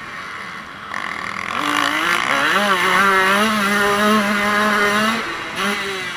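KTM motocross bike's engine revving hard under acceleration: the note climbs over the first couple of seconds, holds steady at high revs for about three seconds, then falls away near the end with a short blip.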